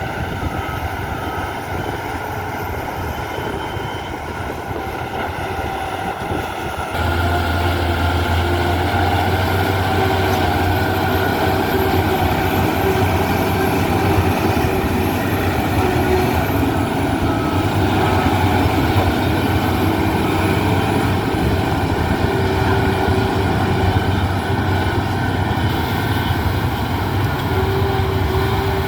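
Heavy diesel earthmoving machine running steadily, its engine growing louder with a strong deep hum from about seven seconds in.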